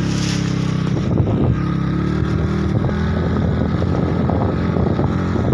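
Motorcycle engine running steadily, with irregular rough gusts of wind buffeting the microphone from about a second in.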